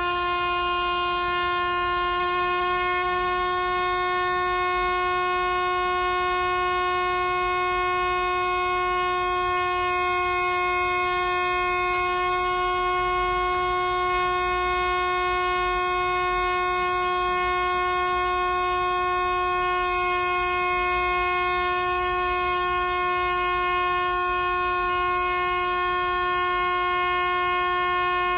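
A Ruffatti pipe organ holding one steady, unwavering note with a bright, full tone.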